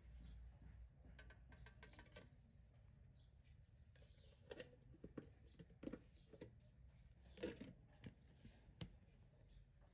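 Faint clicks and scrapes of a powdered formula tin being handled and its plastic lid fitted back on, with a run of sharper clicks in the second half.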